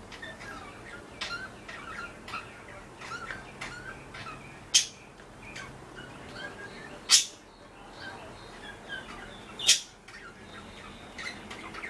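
Two pet budgerigars chattering with a steady run of soft, short chirps and warbles, broken by three loud, sharp sounds about five, seven and ten seconds in.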